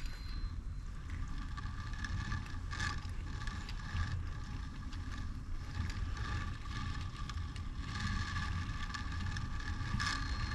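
Differential ring and pinion gears being turned slowly by hand: a low, steady mechanical rumble of the gears meshing, with a few faint clicks.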